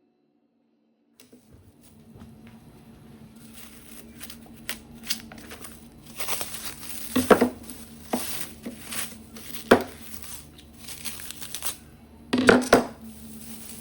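Kitchen handling noises: irregular crinkling and scraping with several sharp knocks, the loudest about seven, ten and twelve seconds in, over a faint steady hum.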